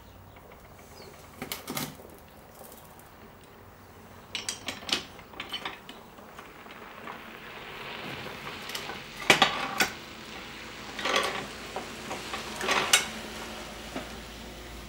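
Steel square tubing and the saw's clamp parts knocking and clinking against the metal base and vise of a chop saw as the tube is set in place, in scattered knocks with the loudest about nine and a half seconds in.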